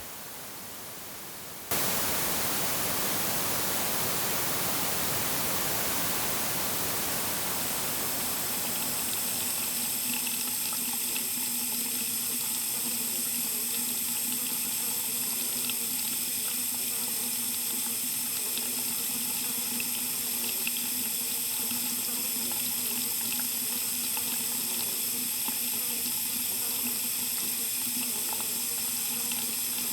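A steady rush of running water cuts in suddenly about two seconds in, after a quieter hiss, and keeps going evenly.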